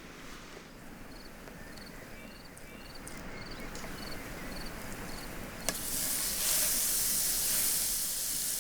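Garlic cloves in butter sizzling in a hot pan. It starts suddenly with a click about two-thirds of the way in, after a quiet stretch, and then holds as a steady sizzle.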